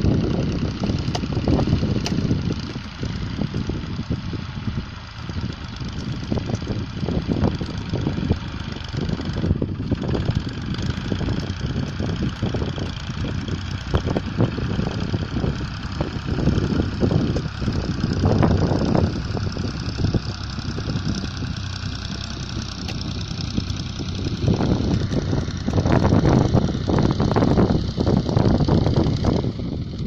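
Fiat 480 tractor's three-cylinder diesel engine running under load as it pulls a plough through the soil, a steady chugging that grows louder near the end as the tractor comes closer.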